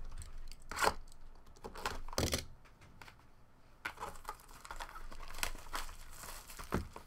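Plastic shrink wrap being torn off a sealed trading-card hobby box and crumpled: several separate sharp crinkling tears.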